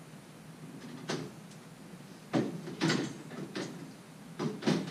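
Several short, irregular metal knocks and clanks of hand tools and parts against the steel frame of a Brunswick A2 pinsetter while it is being unbolted by hand, with the machine switched off.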